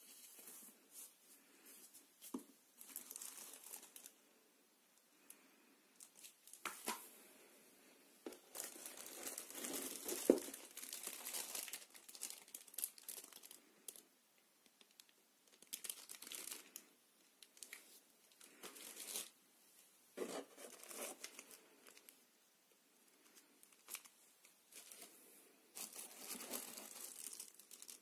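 Plastic wrapping crinkling and rustling in irregular bursts as plastic-bagged robot vacuum parts are handled and pulled from their cardboard packing tray, with the longest, loudest stretch about ten seconds in.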